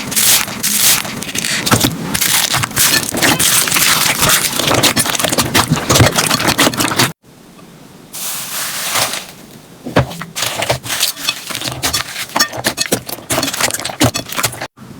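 Slime being pressed and worked by hand: dense crackling and popping for about seven seconds, then a sudden cut to a quieter stretch of scattered clicks and pops.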